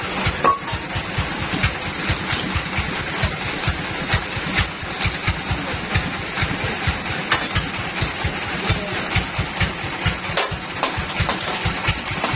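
A sawmill's power engine idling with a steady, even low pulse. Scattered sharp knocks run over it as a log is hammered and wedged into place on the mill carriage.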